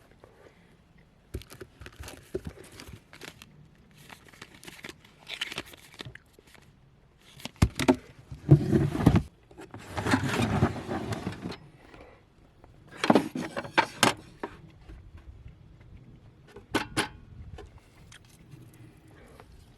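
Irregular rustling, crinkling and clattering of things being handled, with a few sharp knocks, loudest about halfway through.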